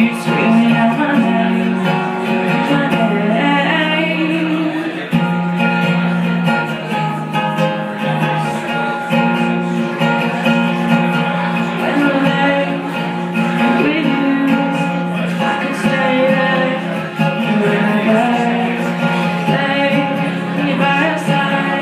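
A woman singing a ballad while strumming an acoustic guitar, with held notes and sliding vocal lines over steady chords.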